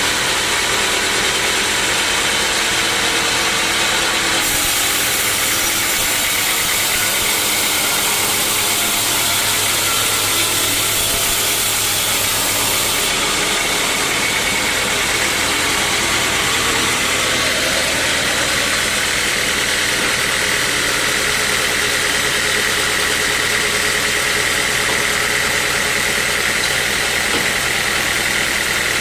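Sawmill saw machinery running steadily, a constant mechanical hum with a high whine that grows stronger about halfway through.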